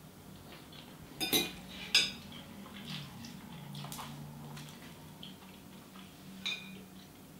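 Metal fork clinking against a ceramic bowl while eating. Two sharp clinks come a little over a second in, the second the loudest, and another clink comes near the end.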